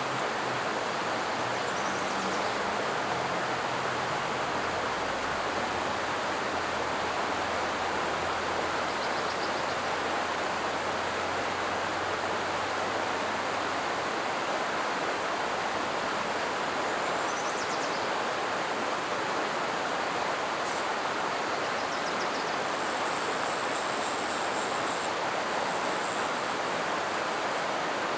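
Small creek water rushing steadily over a riffle.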